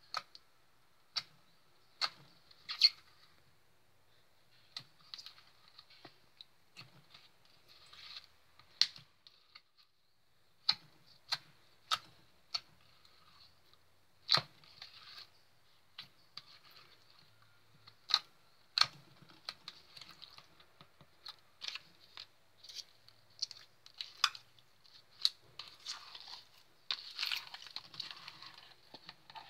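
Clear slime being poked and squeezed by hand in a plastic tub, giving sharp clicks and pops at irregular intervals, crowding into a denser run of clicks near the end.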